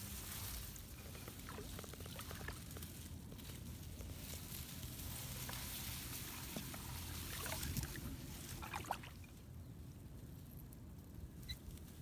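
Tall grass and reed stems rustling and crackling as hands and metal tongs push through the clumps. The rustling is steady with small snaps until about nine seconds in, then grows quieter.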